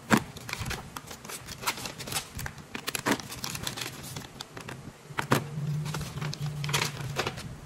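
Sheets of thin printed paper forms being leafed through and shuffled by hand: a run of quick rustles and crinkles. A faint low hum comes in for a second or so past the middle.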